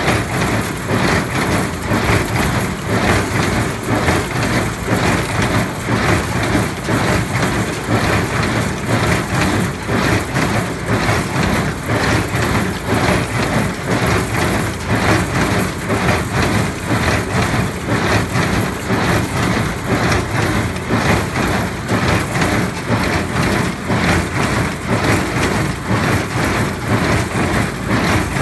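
New Holland small square baler running while baling hay, its plunger and knotter mechanism clattering in a steady, even rhythm.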